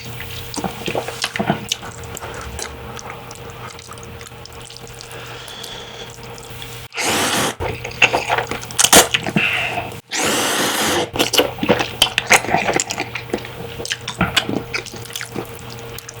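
Ramen noodles slurped twice, with wet chewing and mouth clicks between the slurps.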